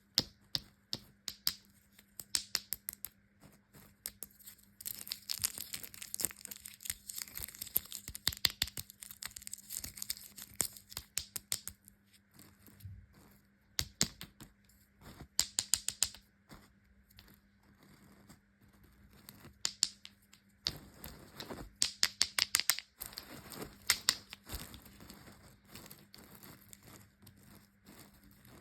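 Plastic and foil candy wrappers being crinkled and torn open, in clusters of sharp crackles with quieter pauses between them.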